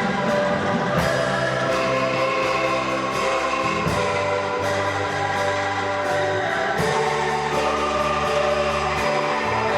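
Angklung ensemble playing: many shaken bamboo tubes rattle together into sustained chords that change every few seconds.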